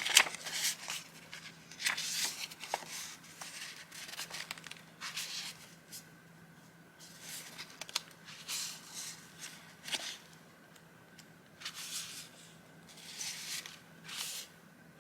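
Vintage paper journaling items handled by hand, rustling and crinkling in separate bursts. The bursts are loudest in the first couple of seconds and come softer and further apart after that, with a few sharp taps among them.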